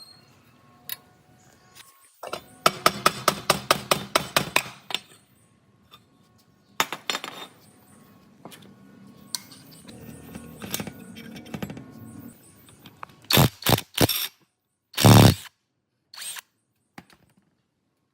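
Hand-tool work on an old diesel water pump: a quick run of sharp metallic taps, about five a second, then scattered knocks and scraping, and several short, loud bursts of tool noise near the end.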